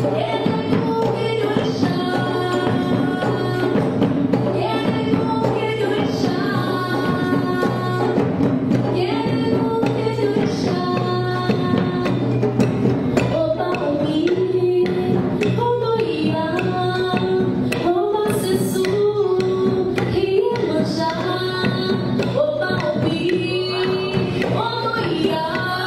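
Music: a singing voice carrying a melody with gliding, bending notes over a steady low drone and light percussion.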